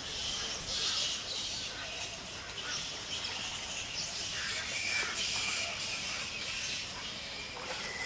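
Birds at a nesting colony chirping and calling: scattered short notes over a steady high hiss of background chatter.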